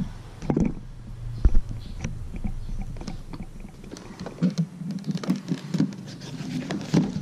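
A cardboard product box being handled and turned over in the hands, with rustling scrapes and several knocks as it touches the table. The loudest knock comes about a second and a half in.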